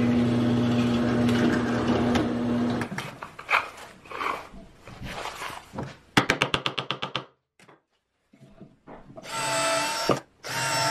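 Drill press running steadily while it bores a hole in a wooden frame, for about three seconds. Then knocks and handling of the wood and a quick run of clicks, and near the end a cordless drill driving screws into plywood in two short bursts.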